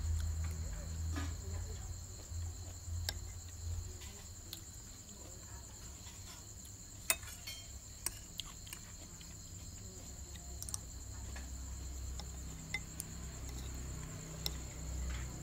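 Night insects chirring steadily and high-pitched, with scattered clinks of a metal spoon against a ceramic plate and bowl, the sharpest about seven seconds in.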